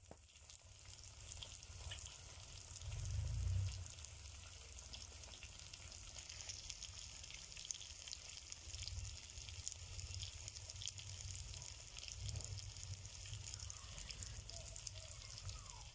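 Country chicken masala sizzling as it fries in an iron kadai: a steady hiss dotted with small crackles and pops. A low rumble comes and goes underneath, loudest about three seconds in.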